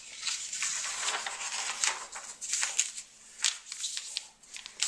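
Paper rustling and crackling as a page of a printed instruction booklet is turned and smoothed flat by hand, with many short crisp crackles.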